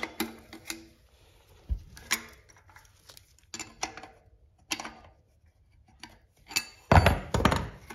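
Steel wrenches and a hub locknut clinking as the nut is unscrewed and taken off the axle of a Quando bicycle front hub: a series of separate metallic clinks with a louder clatter about seven seconds in.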